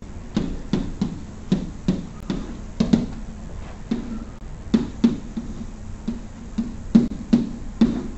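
Chalk tapping against a blackboard while writing an equation: a string of irregular sharp knocks, two or three a second.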